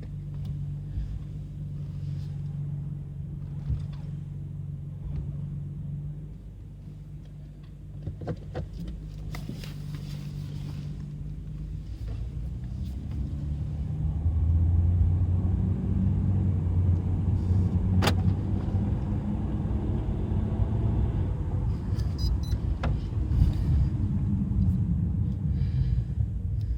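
Car engine running while cold: a steady low drone at first, then louder from about halfway through, its pitch wavering as the engine speed changes, with a few sharp clicks.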